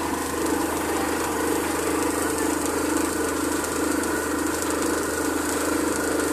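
Borewell drilling rig running steadily: engine and air-driven drilling hammer at work while compressed air blows water and mud up out of the borehole, the sign that the bore has struck water.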